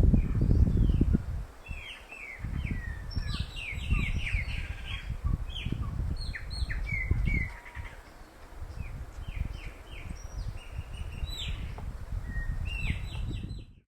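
A group of yellow-tufted woodpeckers calling: many short, high, falling notes from several birds, overlapping and coming thick and fast. A low rumble runs underneath, loudest in the first second or so.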